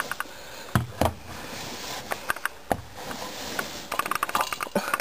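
Wire-mesh hamster cage being handled and rummaged through, with a few sharp knocks about a second in and again near the middle, and a run of light metallic clicks and rattles in the second half.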